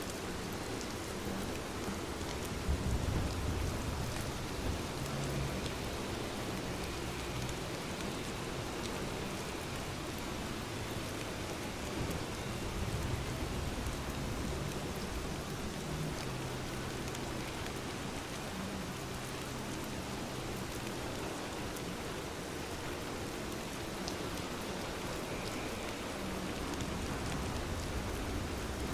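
Rain falling steadily, a dense even hiss of drops on surfaces, with a low rumble swelling about three seconds in.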